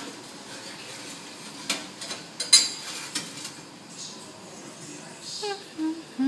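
Sharp metal clanks from a toaster oven's rack and door as a ceramic baking dish is set inside; the loudest clank comes about two and a half seconds in. A short falling voice near the end.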